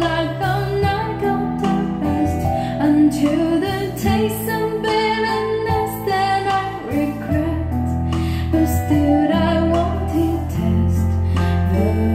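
A song with a singing voice over steady bass notes, played back through a pair of Onkyo D502A two-way bookshelf speakers with 20 cm woofers and heard in the room.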